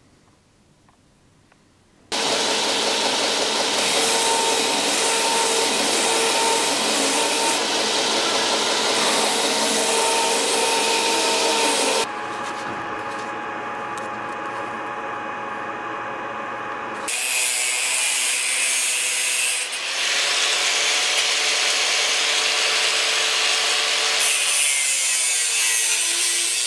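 A power tool runs, grinding away at wood, for about ten seconds; a quieter steady machine hum follows. From about seventeen seconds an angle grinder's cut-off disc cuts through sheet metal with a loud, high, harsh noise.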